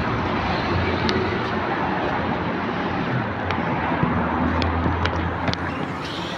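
Steady hum of a trolleybus standing at a stop with its doors open, over street noise, with a few light clicks.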